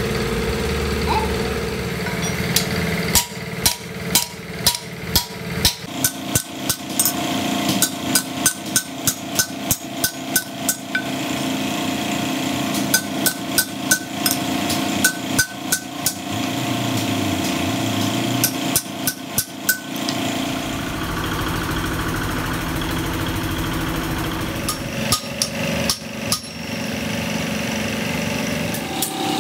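Hand hammer striking a thin steel strip laid on a stone block, in runs of sharp blows about two to three a second with short pauses between runs. A steady engine-like hum runs underneath.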